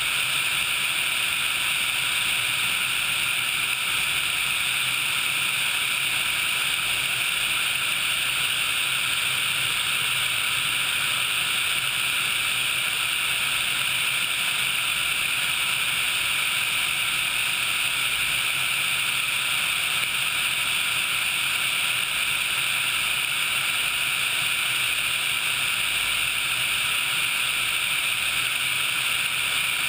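Sikorsky HH-60 Pave Hawk helicopter in steady forward flight: an even, unbroken drone of its twin turboshaft engines, rotor and rushing air, heard through a camera mounted on the outside of the airframe.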